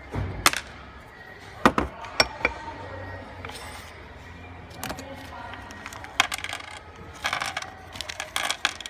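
Small metal parts clinking and tapping as diesel injector sealing washers and tools are handled and set down, a scattering of sharp clicks that thickens into a quick run of clicks near the end.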